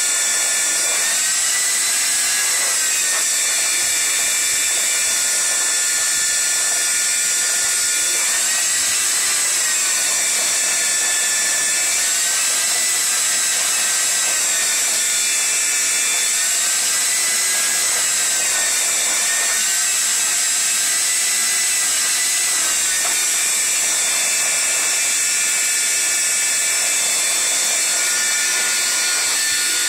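Wet/dry shop vacuum running steadily as its hose sucks debris out of a boat's hull, a loud whine whose pitch shifts up and down every few seconds as the suction load changes.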